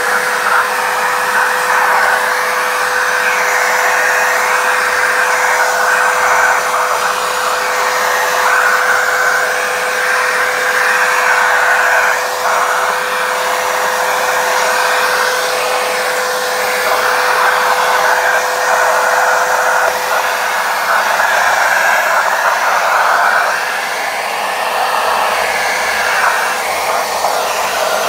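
Wet-and-dry vacuum cleaner running steadily, its narrow nozzle sucking dust out of a window's sliding track. A steady hum under the suction fades out about twenty seconds in.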